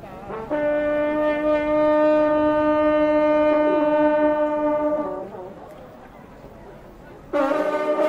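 A group of French hunting horns (trompes de chasse) sounding one long, loud note together, cutting off about five seconds in. Near the end a different piece of background music begins.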